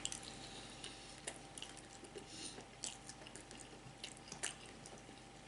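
Faint chewing of spaghetti, with a few soft, wet mouth clicks scattered through.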